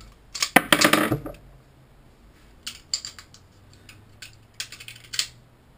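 Metal clicks and clacks of a Rock Island Armory GI M1911A1 .45 pistol being handled: a loud run of clacks just under a second in, then scattered lighter clicks, as a fully loaded magazine is seated and the slide worked to test whether the top round hangs up on feeding.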